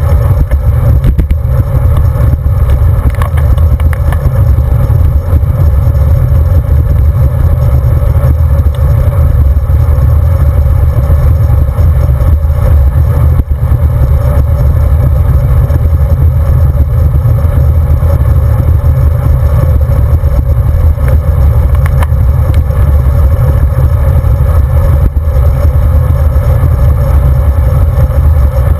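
Wind buffeting the microphone of a handlebar-mounted camera on a road bike at riding speed: a loud, steady low rumble with no break.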